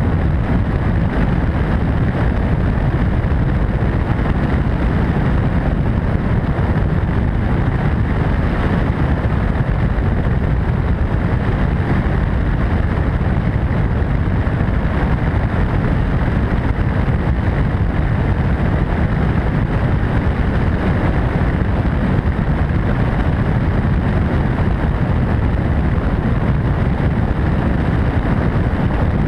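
Steady, unchanging rush of an MD600N helicopter in flight, its turbine engine and rotor noise mixed with wind buffeting on the microphone, heaviest in the low end.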